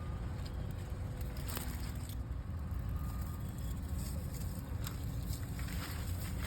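Steady low rumble of construction machinery working in the neighbourhood, with scattered short crackles and rustles of potato plants being pulled from the soil.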